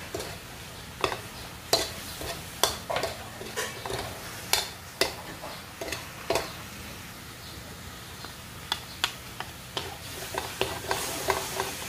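Spatula stirring chicken in a metal wok: irregular scrapes and knocks against the pan, over a light sizzle of frying that thickens near the end.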